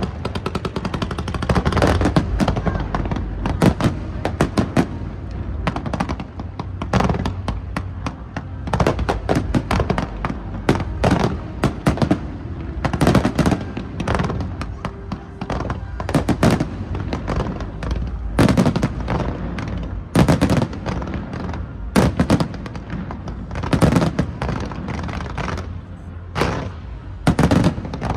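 A fireworks display: a continuous, irregular run of bangs and crackles, with the loudest booms every couple of seconds.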